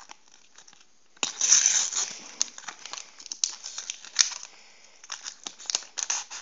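Foil sticker packet being torn open and crinkled by hand: a loud tearing rip about a second in, then scattered crackles and rustling as the packet and stickers are handled.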